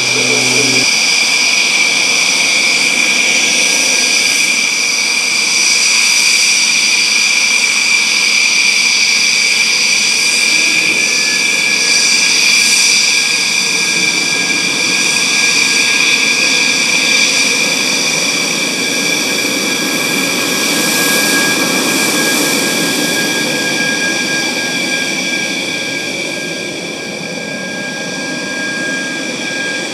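Jet engine whining steadily, a high multi-tone turbine whine over a rushing roar, easing slightly near the end.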